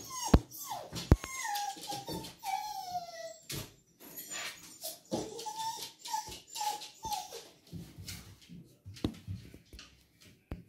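Beagle whining as it waits for its owner to come home: a string of short, high whines, each falling in pitch, for the first seven seconds or so, with a few sharp clicks among them. After that only scattered faint taps are left.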